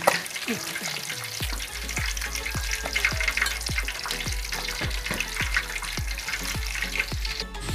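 Thick slab of pork belly deep-frying in hot oil in an aluminium pan: a steady crackling sizzle. This is the first of two fries for lechon kawali. About a second and a half in, a quick, low thumping beat of background music starts underneath.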